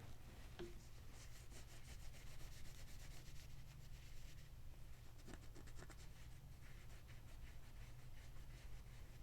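Faint rubbing and scratching from hands handling a pocket knife, in two stretches, over a low steady hum.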